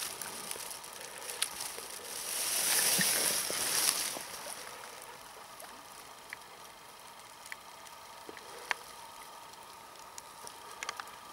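Shallow river water sloshing and splashing as a grayling is let go from a hand, loudest for about two seconds near the start, then settling to gentle lapping with a few faint ticks.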